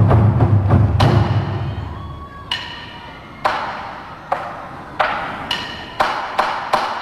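Dance music of percussion: a heavy low drum sound at the start, then sharp wood-block strikes, spaced apart at first and coming faster and faster near the end.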